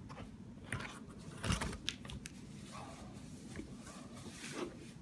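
Light handling noises of a rifle magazine and its foam-lined gun case: scattered small clicks and rubbing, with a dull knock about a second and a half in.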